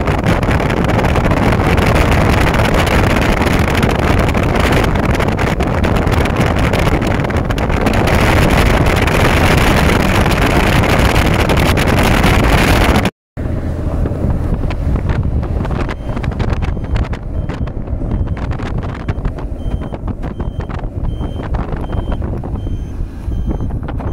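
Jet airliner engines roaring loud and steady during a takeoff, the roar heavy on the microphone. After a sudden cut about halfway, a quieter jet rumble with wind crackling on the microphone and a faint, evenly repeating high beep near the end.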